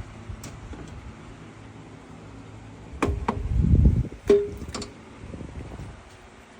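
A few sharp metallic clinks and knocks of tools and parts being handled while the bolts are taken off an LT4 supercharger lid, about three to five seconds in, one with a brief ring, and a low rumble among them.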